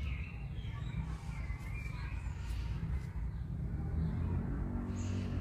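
Steady low rumble of wind on the microphone, with a few faint, short bird chirps.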